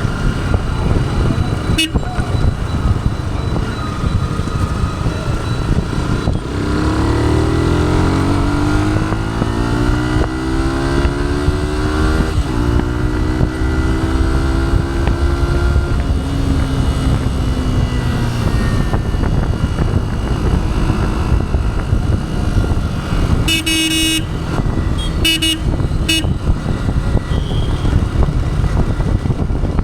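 2011 first-generation Yamaha YZF-R15's stock 150 cc single-cylinder engine pulling under load over steady road and wind noise. Its pitch rises from about six seconds in, steps near twelve seconds, then levels off and slowly falls. A vehicle horn sounds three short times near the end.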